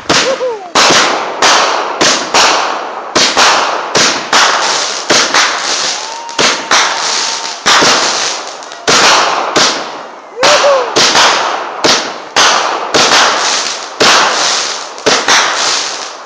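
Multi-shot consumer firework (a Mojo Mania) firing shot after shot, a sharp report about every half second to second, each trailed by crackling. A few short whistling tones come in among the shots.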